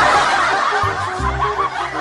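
Laughter over background music: a busy burst of many laughing voices, with low music notes underneath.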